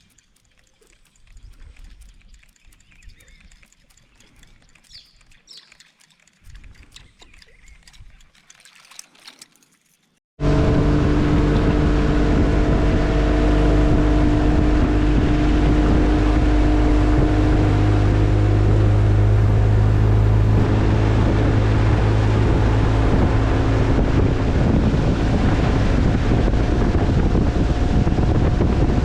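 Faint forest and river ambience with a few soft clicks and calls, then about a third of the way in a boat's motor cuts in abruptly, running loud and steady with a hum of several even tones through to the end.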